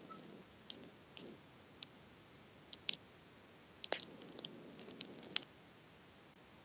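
A series of small, sharp clicks and pops, about a dozen, scattered irregularly over several seconds: a person's neck joints cracking.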